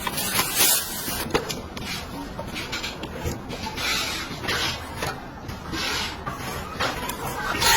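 Close-up handling sounds: rubbing and scraping with frequent light knocks and clicks as household objects are handled.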